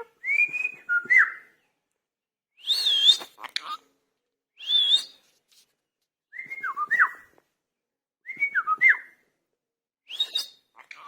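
Indian ringneck parrot whistling and chirping in about six short bursts a second or two apart, with quick rising and falling whistled notes.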